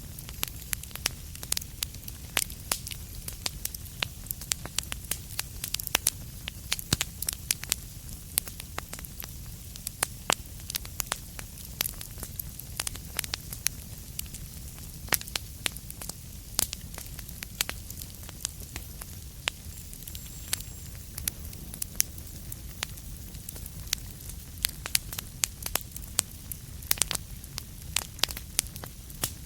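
Wood fire in a fireplace crackling, with frequent sharp, irregular pops over a steady low rumble.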